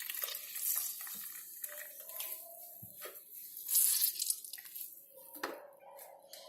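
Water splashing and dripping as a slice of bread is dipped into water and squeezed out by hand, in irregular bursts, the loudest about four seconds in.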